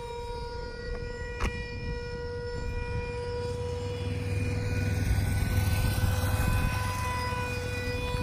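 Radio-controlled model F-15 jet flying overhead, its motor giving a steady high whine that grows louder about halfway through as the plane passes closer.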